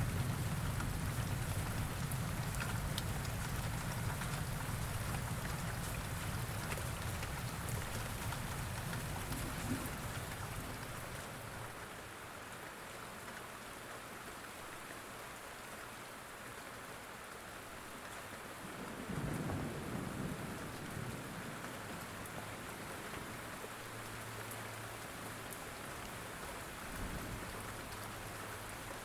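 Steady rain falling, with rolls of distant thunder: a long low rumble dying away over the first third, another rumble swelling about two-thirds of the way through, and a short one near the end.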